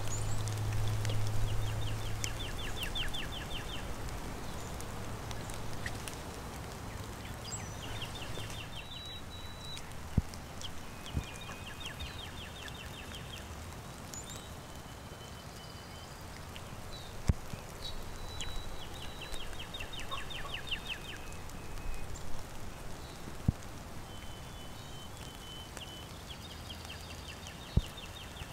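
Steady rain with songbirds singing short, rapid trills again and again, mixed with a few clear whistled notes. A low hum underneath cuts off about eight seconds in, and a few sharp taps stand out.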